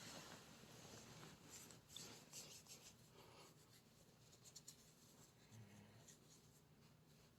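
Near silence: faint breathing of a sleeper between snores, with a short, soft low snore about five and a half seconds in.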